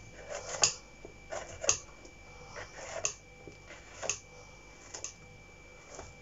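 A small kitchen knife paring and trimming the stem of a king bolete (porcini) mushroom, a sharp cutting stroke about once a second with lighter scrapes between.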